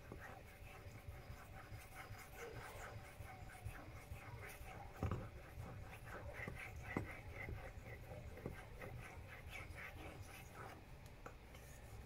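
Straight razor blade stroked back and forth across a fine-grit water whetstone: a faint, quickly repeated scraping, with a few light ticks in the middle as the blade is turned or set down on the stone.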